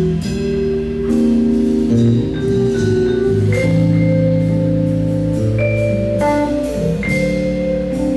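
Jazz trio playing: vibraphone melody notes ringing over chords held on an electric keyboard, with a drum kit keeping light time on cymbals.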